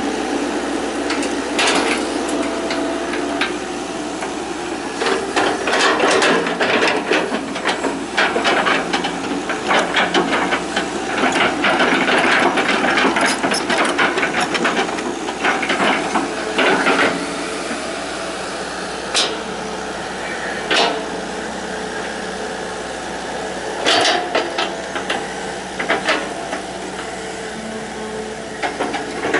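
Hitachi EX120 hydraulic excavator running steadily while it works, with many sharp knocks and cracks. The knocks come thickest through the middle and are scattered singly near the end.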